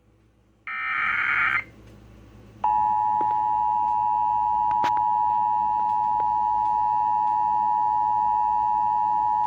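Emergency Alert System signal on a radio broadcast. About a second in there is a short burst of digital data header, and from under three seconds in the steady two-tone attention signal starts, announcing a tornado warning.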